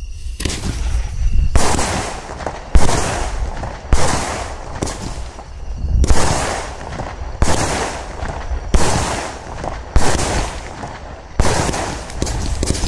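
Startrade Beatbox 2 compound fireworks battery (16 mm, 112 shots) firing rapidly: a dense, unbroken run of shots and bursts, with a louder bang about once a second, each trailing off in a hiss.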